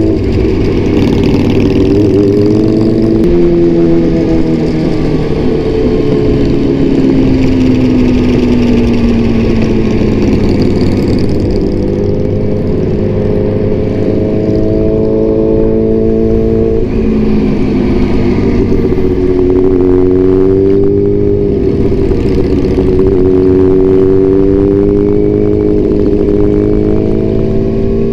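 Motorcycle with an Austin Racing aftermarket exhaust running on the highway. The engine note rises and falls with the throttle, sinking slowly for several seconds, then climbing again, with sudden steps in pitch about three seconds in and again just past halfway.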